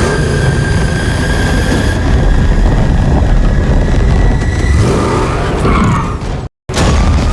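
Batmobile engine sound effect: a loud, dense engine rumble with a high whine above it that rises slowly. Near the end come a few sweeping sounds, then a sudden break of silence, and another engine sound starts with a rising whine.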